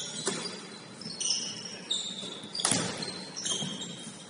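A basketball bouncing a few times on a hardwood gym floor, the loudest bounce about two-thirds of the way through, with short high-pitched sneaker squeaks on the court.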